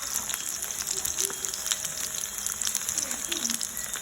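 Plantain slices frying in hot oil in a pot: a steady sizzle with many small crackling pops.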